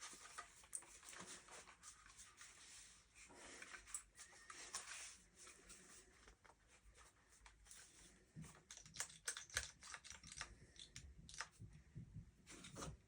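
Faint scattered clicks and light rattles of a bullpup shotgun's parts being handled during takedown, after a takedown pin has been pushed out. The clicks come more often in the second half.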